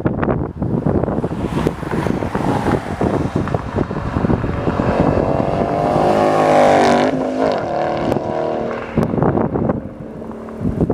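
2011 Ford Mustang GT's 5.0 V8 through a Roush axle-back exhaust doing a fly-by at about 100 mph: the engine note builds, is loudest about seven seconds in, drops in pitch as the car passes, then fades away. Wind buffets the microphone throughout.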